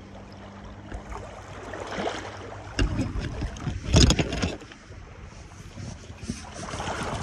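Wind buffeting the microphone and small waves lapping at a stony lakeshore, with a louder rush of noise about four seconds in.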